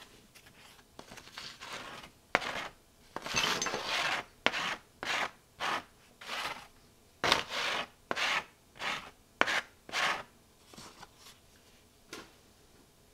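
Crumbled, rotten speaker surround foam and a paper sheet being scraped and rubbed together in a quick run of short, dry scraping strokes, about two a second, thinning out to a few faint ones near the end.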